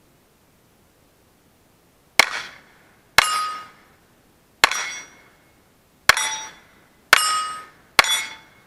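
Six pistol shots at an irregular pace about one to one and a half seconds apart, fired at steel targets. Most shots are followed by the metallic ring of a steel plate being hit.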